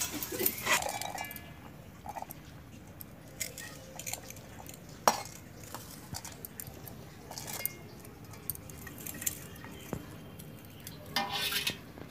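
Scattered light clinks and taps of stainless-steel bowls, plates and a jar as vegetables are handled and dropped in, with one sharper clink about five seconds in.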